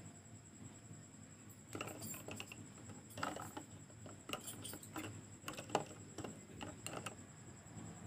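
Faint, scattered clicks and knocks of small laser-pointer parts being handled and fished out of a glass jar of water, coming in a string from a couple of seconds in until near the end.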